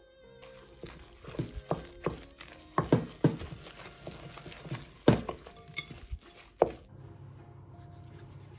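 Wooden spoon stirring stiff cookie dough in a glass mixing bowl. It scrapes and knocks against the bowl in about ten irregular sharp thuds, then stops about seven seconds in.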